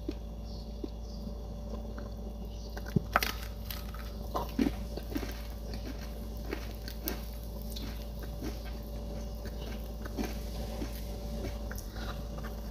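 Crisp crunches and chewing as a sesame-coated binangkal (fried dough ball) is bitten into, chewed and broken apart by hand. Scattered crackles come at irregular moments, the sharpest a few seconds in, over a steady low hum.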